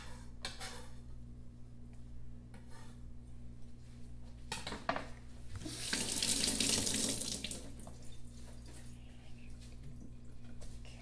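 Water running from a kitchen tap for about two seconds, around the middle. Before it come a few light clatters of kitchenware.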